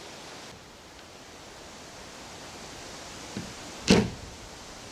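A single loud knock about four seconds in, with a fainter thump just before it, from work at the foot of an old wooden garage door, over a steady hiss.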